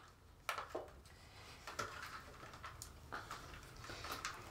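Faint handling noise: wires and their plug connectors rustling and clicking as they are fed by hand, one at a time, through a hole in a motorcycle's plastic tail section. The light clicks come irregularly, several times.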